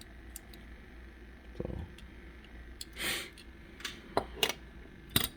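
Small die-cast toy cars being handled: a soft knock about a second and a half in, a brief swish around three seconds, then a few sharp light clicks as the metal models are moved and set down.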